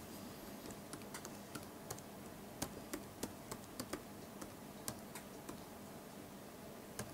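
Faint typing on a computer keyboard: single keys tapped at an uneven pace, about fifteen keystrokes over the first five seconds or so, then one more near the end.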